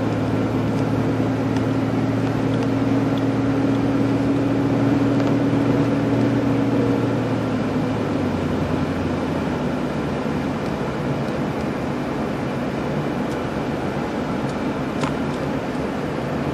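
Car engine and tyre noise heard from inside the cabin while driving: a steady low hum over road noise. The engine note eases off about halfway through.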